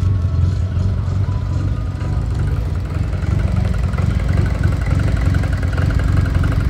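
Honda four-cylinder engine in a Fiat Palio idling steadily, running on new spark plugs just fitted and gapped because it had sounded like it was missing.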